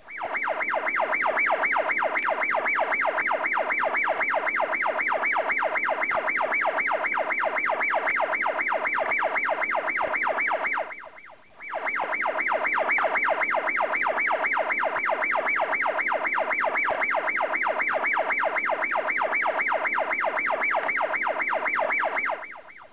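Ambulance siren sounding a fast, evenly repeating warble. It cuts out briefly about halfway through, then resumes.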